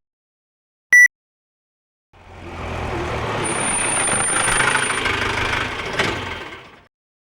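A short, loud electronic beep, then a car's engine and tyres fading in, running for about four seconds with a thin high squeal partway through, and fading out again.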